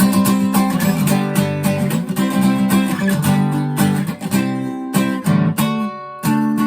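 Acoustic guitar strumming chords, played to close a song. Near the end a final chord is struck and left ringing.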